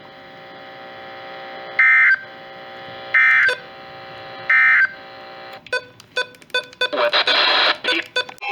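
Emergency Alert System end-of-message signal on NOAA Weather Radio: three short bursts of warbling digital data tones, about a second and a half apart, marking the end of the warning. Crackling clicks follow, then a burst of radio hiss near the end.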